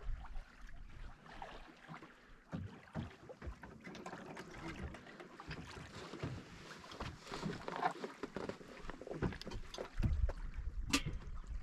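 Water lapping and slapping against the hull of an anchored boat held in a river current, with scattered small knocks. Wind buffets the microphone from about ten seconds in.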